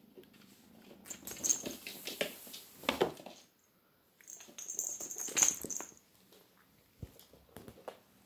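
A kitten's paws and claws scrabbling on a wooden floor as it pounces on and wrestles a toy mouse on a string. The scuffling and knocking come in two bursts, about a second in and again around four seconds in, with a few light ticks near the end.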